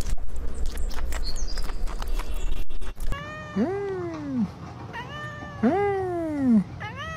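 Music with sharp clicks for about the first three seconds. Then a tabby cat meows loudly twice, two long drawn-out meows about two seconds apart, each rising and then falling in pitch.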